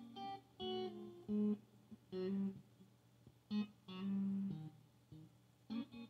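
Clean electric guitar played through a Fender Deluxe Reverb tube amp and Joyo American Sound pedal at low bedroom volume: short picked phrases of chords and single notes with gaps between them, over a steady low amp hum. Near the end it turns to quick, rhythmic chopped chords.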